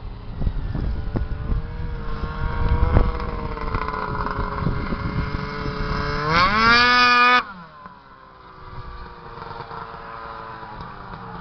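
Ski-Doo MXZ 600 snowmobile engine running as the sled rides across the snow. About six seconds in it is revved hard, its pitch climbing steeply. About a second later it drops off abruptly to a quieter, falling drone. Wind rumbles on the microphone at the start.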